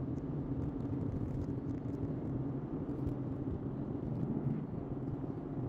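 Steady rumble of a car driving on a paved highway, heard from inside the cabin.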